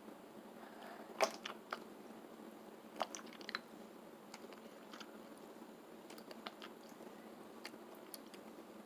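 Sticky slime being squeezed and pulled apart by hand, giving scattered small wet clicks and pops, a few louder ones about a second in and around three seconds.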